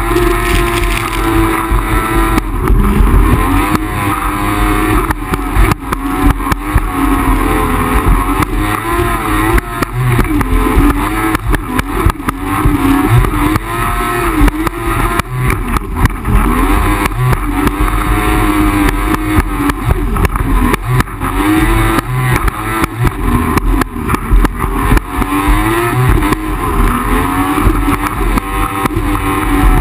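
Yamaha jet ski's two-stroke engine running at speed, its pitch wavering up and down with the throttle, over a constant rush of wind and spray and frequent short thumps as the hull hits the water.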